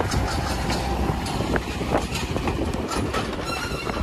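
Vintage passenger coaches rolling past close by: a steady low rumble from the wheels on the rails, with irregular clicks and knocks as they cross rail joints.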